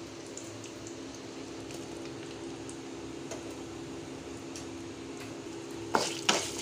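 Chopped onions frying gently in hot sesame oil in a metal kadai: a soft, steady sizzle over a low hum. Near the end a spatula starts stirring, scraping against the pan in quick, sharp strokes.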